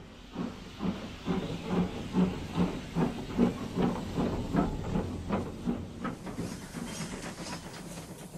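Steam locomotive chuffing steadily, about two and a half puffs a second over a steam hiss. The puffs grow fainter and blur together near the end.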